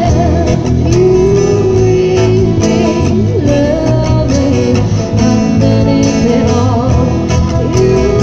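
A live band playing: a woman singing the lead melody over electric guitars and a drum kit, amplified through a PA.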